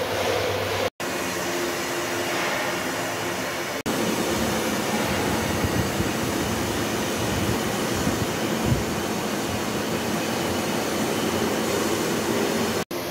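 Horizontal dynamic balancing machine spinning a pump impeller on an arbor through a cardan drive shaft: a steady mechanical run with workshop noise. It breaks off in brief sudden dropouts about a second in, near four seconds and near the end.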